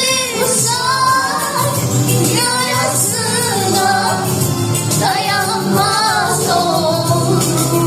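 A woman singing loudly with a strong, wavering vibrato on held notes, over backing music.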